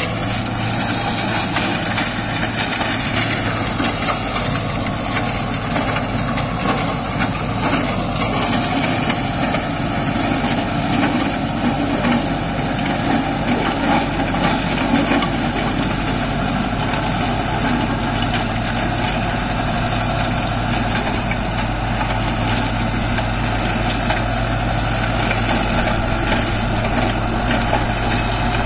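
Deutz-Fahr Agrolux 80 tractor's four-cylinder diesel engine running steadily under PTO load while it drives a Maschio Terminator flail shredder, whose rotor chops cassava stalks into mulch in a continuous dense noise.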